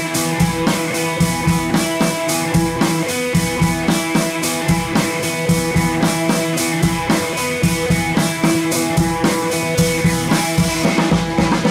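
Music with a drum kit keeping a steady beat.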